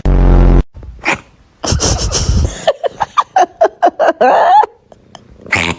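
A cat sneezing in short bursts, with a person laughing in quick breathy pulses in between. A loud low buzz opens the first half-second.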